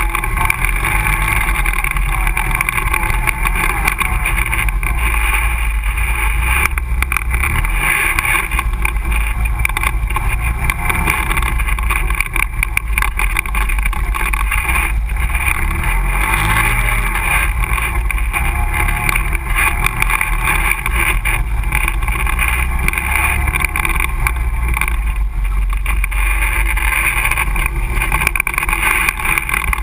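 ATV engine running steadily under way on a rough dirt trail, heard close up from a camera mounted on the machine, with occasional knocks as it rides over bumps.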